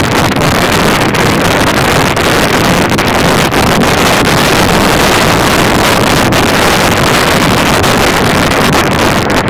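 Wind rushing over the microphone of a moving motorcycle at night riding speed, a loud steady noise that buries the engine and road sound.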